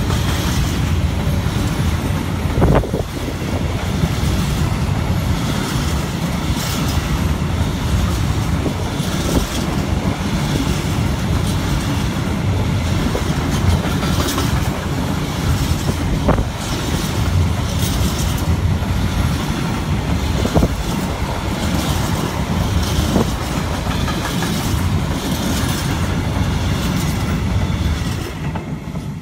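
Long freight train of empty stake wagons rolling past close by: a steady rumble and clatter of wheels on the rails, with a few sharp clicks scattered through. The noise fades near the end as the last wagon goes by.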